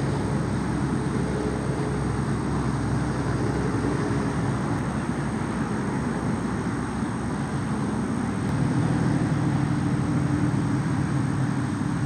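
A steady low engine drone, a little louder over the last few seconds.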